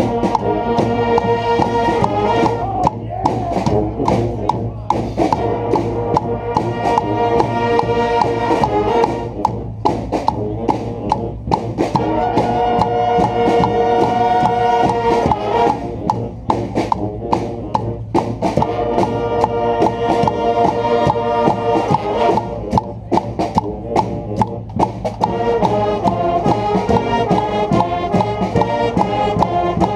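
Street brass band with drums playing a rock-style tune: the horns play chords in repeated phrases a few seconds long, and drum hits punctuate the gaps between them.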